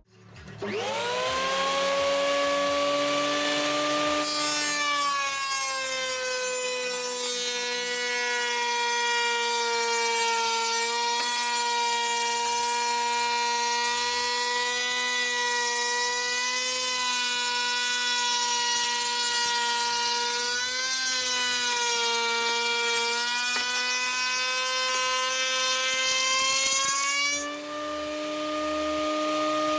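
Handheld router mounted in a router table, spinning up with a rising whine, then cutting wood: the pitch drops slightly under load from about four seconds in, with a hiss of cutting over it, and climbs back as the load eases. The sound dips briefly near the end.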